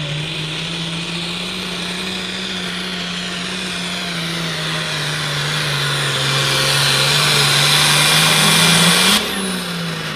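Diesel engine of a red International Harvester pulling tractor running hard under load, with a strong high hiss over its note. The engine's pitch sags and then climbs again as it gets louder, and the sound drops suddenly near the end.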